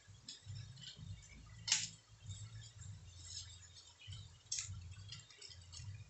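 Beef skin sizzling and crackling in an aluminium wok on a gas burner, with two sharp pops, one about two seconds in and one about four and a half seconds in. A low rumble comes and goes underneath.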